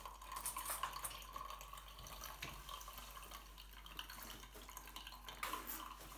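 Faint water dripping and trickling onto a shower tray, with an uneven crackle.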